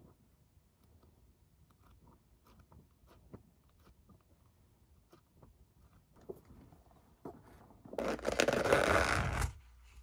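Faint, scattered taps and rustles of books being handled. About eight seconds in, a loud crinkling rustle of a plastic takeaway container lid being pulled off lasts about a second and a half and then stops abruptly.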